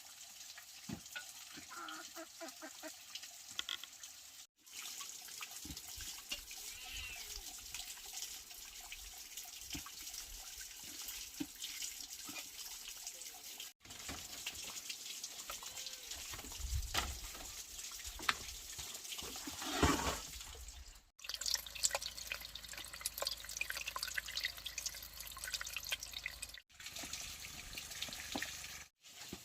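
Water running and splashing, with scattered clicks and knocks, broken by several abrupt cuts.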